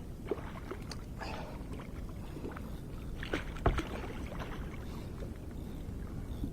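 Water splashing and lapping around a kayak, with scattered short knocks; the sharpest knock comes a little past halfway. A steady low rumble runs underneath.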